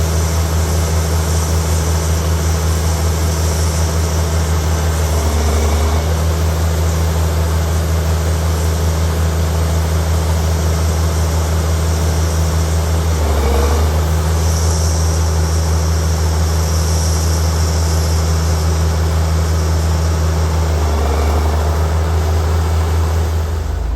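Diesel engine of heavy farm harvest machinery running steadily, a loud low drone that wavers briefly three times, about eight seconds apart.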